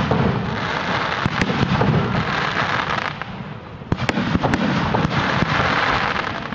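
Aerial fireworks shells bursting overhead: many sharp bangs and pops over a continuous rumbling rush of sound. It eases briefly about three seconds in, then a loud bang near four seconds sets off more pops.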